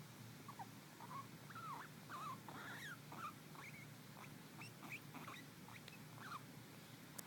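Guinea pig making a quick series of soft, short squeaks, some rising and some falling in pitch, that taper off near the end. One sharp click comes just before the end.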